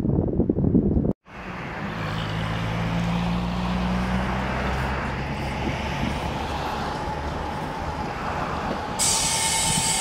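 Trolleybus running in the street: a steady hum with road noise. A brief cut comes about a second in, and near the end a brighter hiss with a higher, steady whine joins in.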